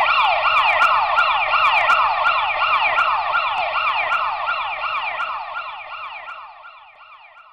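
Ambulance siren wailing in a fast repeating downward sweep, about three sweeps a second. It is loud at first, then grows steadily fainter over the last few seconds until it fades out.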